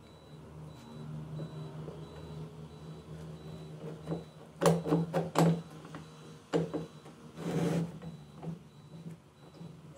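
Metal F-clamp knocking against the wooden frame pieces as it is set and tightened across the mitred corner: three sharp knocks about five seconds in, another a little later, and a short scrape near the end, over a steady low hum.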